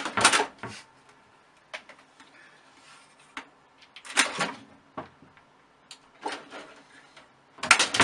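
A cat's claws and paws scraping and knocking against a plastic computer tower case, in short, irregular bursts. The loudest come near the start, about four seconds in, and near the end.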